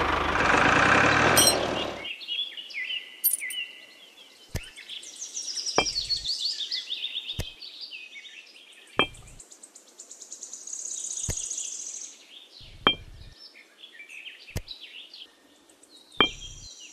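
A small toy tractor motor runs for about the first two seconds and then stops. After that, birds chirp while miniature terracotta bricks are set down one at a time, each with a sharp click, about every one and a half seconds.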